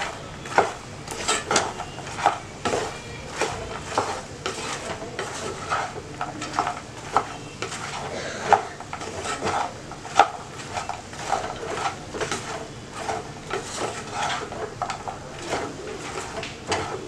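Wooden spatula stirring puffed lotus seeds (makhana) in a coated pan, tossing them through brown-sugar syrup: irregular knocks and scrapes of the spatula and seeds against the pan, several a second.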